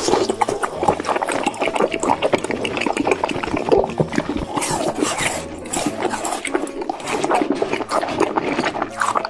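ASMR eating sounds of ice-cream bars being bitten and chewed: a dense, continuous run of close-up crunching, smacking and mouth noises.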